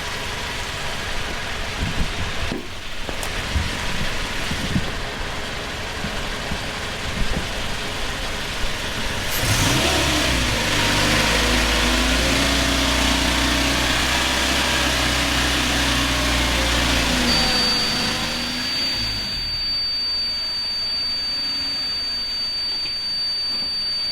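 Pickup truck engine running and pulling slowly forward, its pitch rising and falling as the truck drives onto the safety switch mat. About two-thirds of the way through, the mat's continuity beeper starts a steady high beep: the truck's weight has activated the switch.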